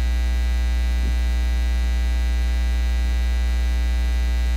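Steady electrical mains hum carried on the recording: a loud, low, unchanging drone with many evenly spaced overtones.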